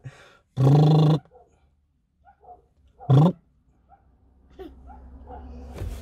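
A person's playful mock lion roar, one held roar near the start and a shorter one about three seconds in.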